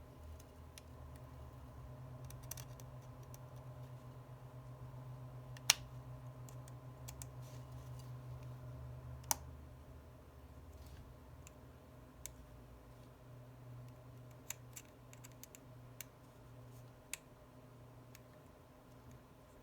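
Small precision tools clicking and tapping on a phone's internal parts and tiny screws during reassembly: sparse light clicks, with two sharper ones about six and nine seconds in, over a faint low hum.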